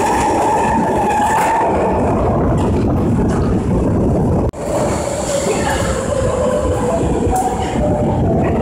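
Midosuji Line subway train running along an underground station platform, a loud steady rumble of wheels on rails. After an abrupt break about halfway through, a Kita-Osaka Kyuko train is heard pulling into the platform, with the same rail rumble and a faint steady motor whine.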